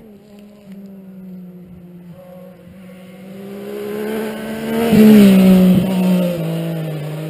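Motorcycle engine approaching and passing close. It grows louder from about three seconds in, peaks about five seconds in with its pitch dropping as it goes by, then fades.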